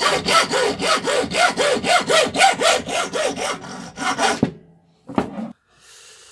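Hacksaw cutting through a small copper-alloy rod clamped in a vise, in quick, even strokes of about four a second. The sawing stops about four and a half seconds in, followed by one short clatter.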